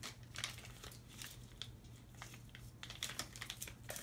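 Pregnancy test's wrapper being torn and peeled open by hand: faint crinkling and scattered small clicks.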